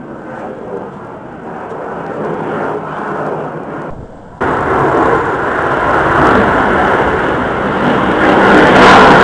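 Blue Angels F/A-18 jet flying over, a rushing jet-engine roar that grows louder, jumps up suddenly about four seconds in, and peaks near the end.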